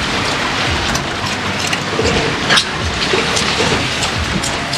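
Steady rush of wind and water around a fishing boat, with scattered sharp knocks and splashes.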